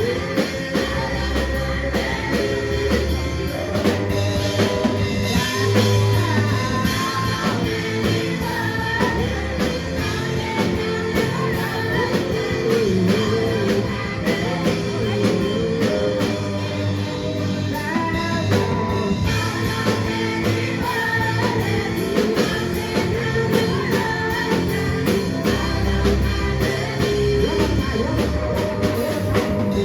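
Gospel worship song played by a full band, with drums and sustained bass under held chords, and a voice singing over it.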